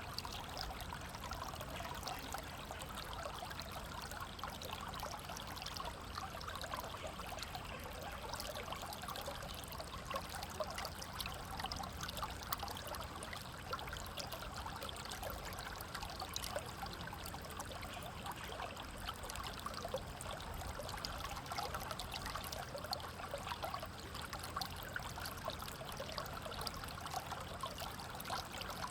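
River water flowing steadily over rocks, a continuous rushing with fine splashing and trickling.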